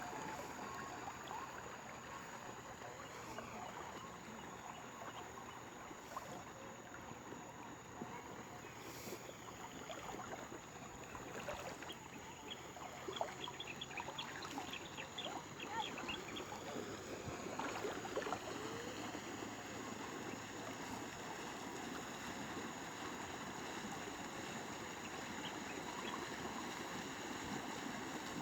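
Steady rush of moving water with a spell of splashing and crackling near the middle.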